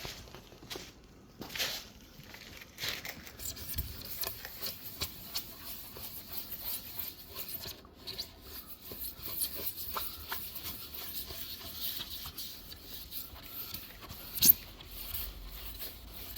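Plastic headlight lens being scrubbed by hand with an abrasive pad to take off the yellowing: an irregular scratchy rubbing made of many small clicks, with one sharp click near the end.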